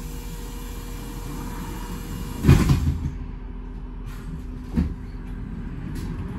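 Double-decker bus interior: a steady low engine hum, a heavy clunk about two and a half seconds in with a short rattle after it, and a lighter knock about two seconds later.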